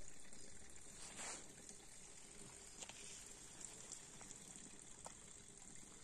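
Near silence: faint outdoor ambience, an even soft hiss with a few faint ticks.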